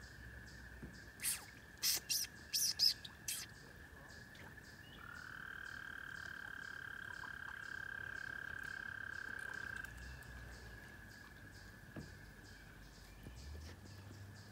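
A frog's long, steady trill of about five seconds, over a background chorus of distant trills and faint ticking about twice a second. Near the start, a quick run of five or six sharp chirps is the loudest sound.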